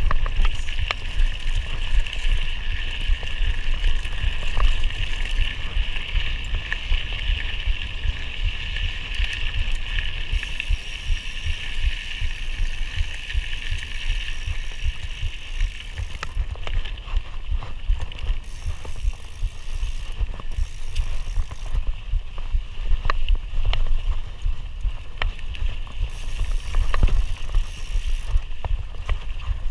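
Mountain bike ridden along a dirt trail: wind buffeting the microphone and the rattles and knocks of the bike over bumps, with a steady high buzz through the first half.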